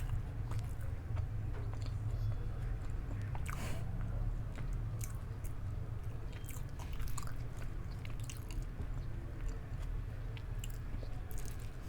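Close-miked chewing and biting of food, with scattered crisp clicks and one louder crunch about three and a half seconds in, over a steady low hum.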